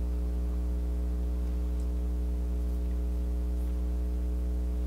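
Steady electrical hum: a low drone with a ladder of fainter higher overtones, unchanging throughout.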